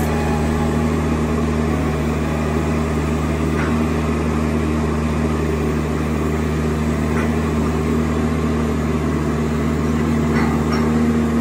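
Boat travel lift's engine running steadily, a low even hum with no change in pitch.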